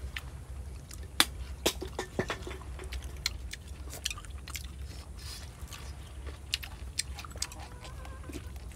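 People eating a meal: scattered short, sharp clicks of utensils against bowls, and chewing, over a low steady rumble.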